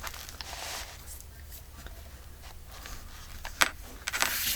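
Handmade paper journal being slid and handled on a tabletop: soft scraping and paper rustling, with one sharp tap about three and a half seconds in.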